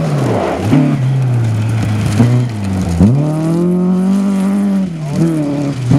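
Rally car engine revving hard on a gravel stage. Its note drops sharply about four times as the driver lifts or shifts gear, then climbs and holds high again.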